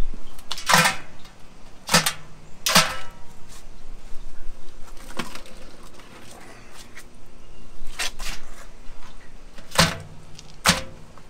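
Iced blue crabs dropped into an aluminum crab steamer pot, clattering against the metal of the perforated basket: about eight sharp knocks, unevenly spaced, some with a brief metallic ring. Between the drops there is fainter rummaging as more crabs are picked out of a cooler.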